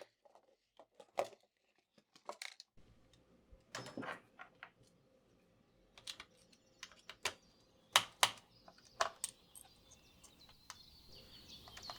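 Scattered light clicks and taps of a small screwdriver and tiny screws being worked out of a laptop's heatsink and set down. Faint bird chirps come in near the end.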